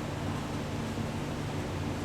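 Steady low hum with an even hiss over it, unchanging throughout, from a running fan or other machine in the room; no tool strikes or clicks.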